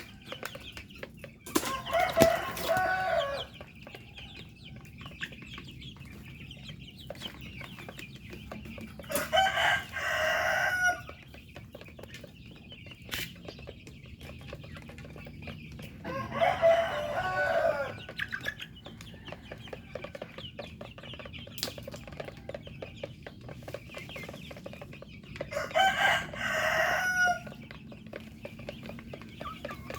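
A rooster crowing four times, each crow about two seconds long and coming roughly every eight seconds, with chickens clucking quietly between the crows.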